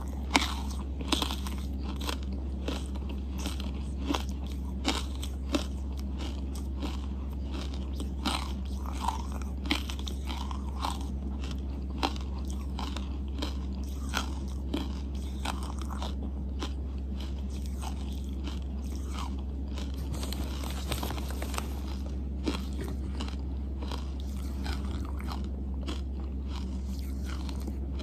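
Close-miked chewing of a mouthful of charcoal paste and chunks, with sharp crunches. The crunches come often in the first half and more sparsely later. A steady low hum runs underneath.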